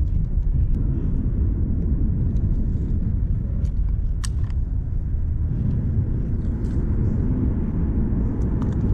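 Steady low outdoor rumble, with a few light clicks as the fishing rod and reel are handled.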